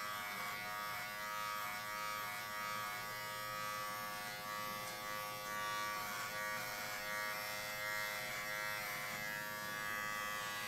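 Philips Norelco MG9000 Prestige cordless trimmer running with its wide trimmer head fitted, a steady electric buzz as it is passed over chest hair.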